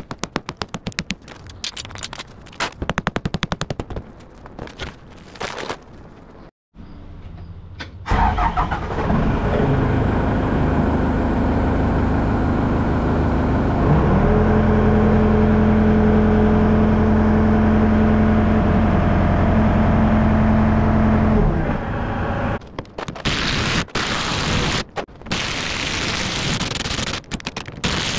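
Rapid metal-on-metal impacts rattling on a rusted truck wheel, then a motor running steadily for about thirteen seconds. Near the end, a cordless impact wrench hammers in short bursts on rusted axle U-bolt nuts.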